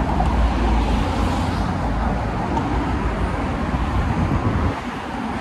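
Steady rush of road traffic passing close by, with a deep rumble underneath; it eases slightly near the end.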